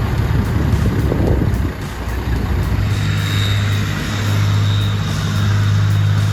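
Heavy vehicle engine running, settling into a steady low drone about halfway through, with a thin high whine over it.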